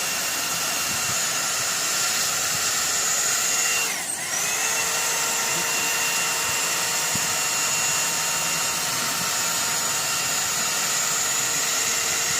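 Hot air brush hair dryer running: a steady rush of air with a motor whine. About four seconds in it briefly dips, then spins back up, its whine rising back to the same steady pitch.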